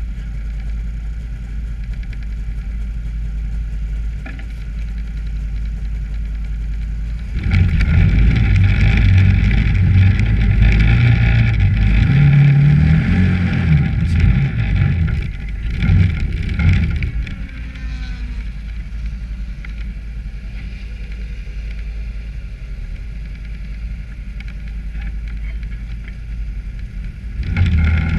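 Engine of a small off-road ride-on machine running steadily, revving up louder about seven seconds in with a rising pitch for several seconds, then easing back to a steady run before picking up again near the end.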